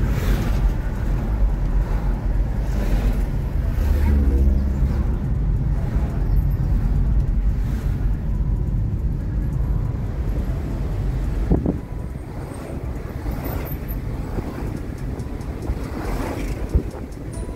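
Car driving uphill, heard from inside the cabin: steady low engine and tyre rumble with road noise. An oncoming truck passes close alongside at the start, and the rumble eases a little about twelve seconds in.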